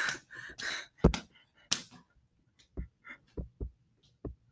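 Breathy, stifled laughter and panting at the start. Then a couple of sharp clicks and several short dull thumps of a handheld phone being handled close to its microphone.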